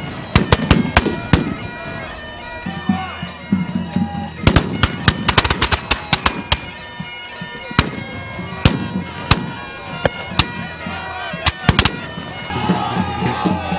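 Black-powder flintlock muskets firing in ragged volleys, shots coming in clusters and single cracks throughout. Bagpipes play underneath, a steady drone with a wavering tune, louder near the end.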